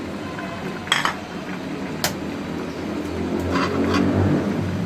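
Utensils clinking against a cooking pot and bowl about four times, sharpest about two seconds in, over a steady low rumble.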